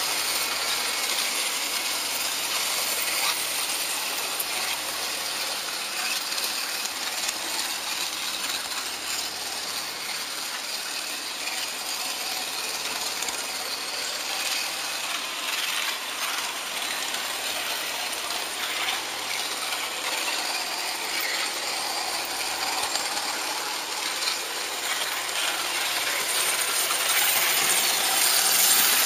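HO-scale model locomotive running along its track: a steady, high mechanical running noise of its small motor and gearing, with many small clicks from the wheels on the rails. It gets a little louder near the end as it runs into a tunnel.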